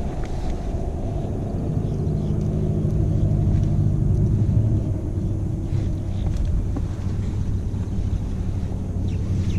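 A steady low engine-like drone with a hum, swelling a little in the middle and easing off later.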